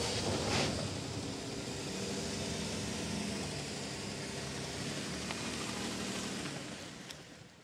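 2010 Jeep Grand Cherokee's 3.7L V6 running as the SUV climbs a dirt trail and drives past close by, under a steady hiss. The sound fades out near the end.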